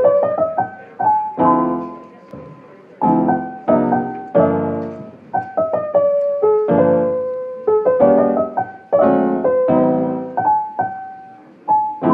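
Background solo piano music: a gentle melody over chords, each note struck and left to fade.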